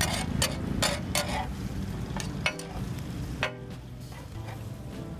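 Chicken pieces in yogurt masala and ghee sizzling on a flat tawa griddle, with two metal spatulas scraping and clacking on the griddle: a quick run of strokes in the first second and a half, then a few more before the frying settles to a steady sizzle.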